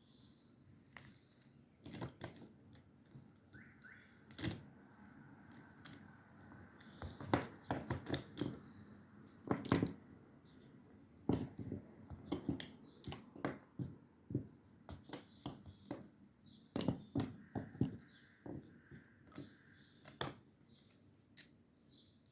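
Irregular clicks and knocks of small objects being handled and set down on a desk, some clustered quickly, some single and louder.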